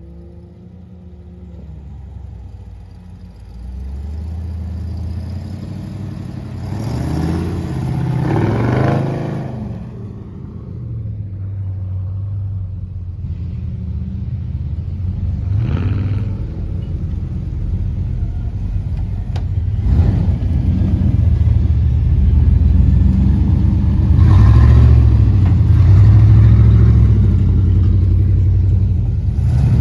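An off-road vehicle's engine revving again and again under load, each rev rising and falling in pitch. It grows steadily louder, with the strongest revs near the end.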